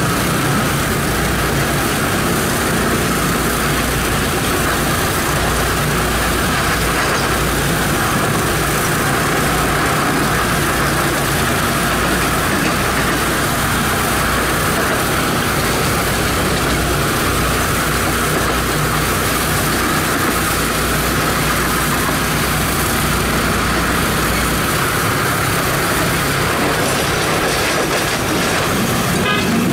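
Wulai tourist trolley cars running along their narrow-gauge track, the steady noise of small wheels on the rails heard from aboard a moving car.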